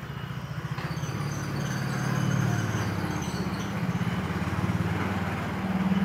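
Cat growling low and steadily during a stare-down between two cats, its pitch wavering and rising toward the end: a warning of aggression.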